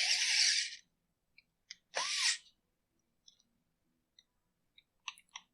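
Cordless drill-driver running screws down: its motor whine stops under a second in, then one short burst about two seconds in, followed by a few faint clicks near the end.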